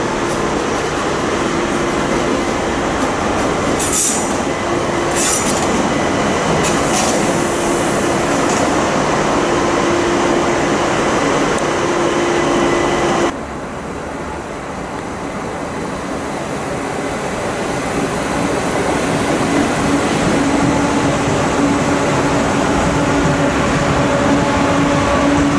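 ÖBB Cityjet electric multiple units running through the station: a steady electric hum, with a few short, high wheel squeals about four to seven seconds in. About halfway through, the sound changes abruptly to another Cityjet whose motor hum grows louder as it runs past.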